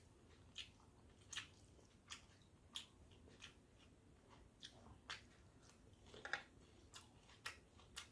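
Close-up eating sounds: faint chewing with short wet mouth clicks and light crunches at an uneven pace, roughly one to two a second.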